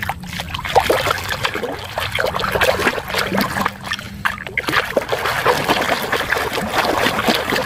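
A hand splashing and swishing through a plastic basin of muddy, foamy water, with many irregular small splashes and sloshes.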